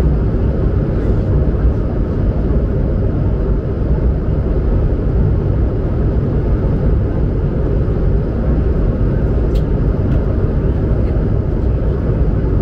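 Inside the cabin of an Airbus A220-100, its Pratt & Whitney PW1500G geared turbofans and the airflow make a loud, steady rumble and rush, heaviest in the low end.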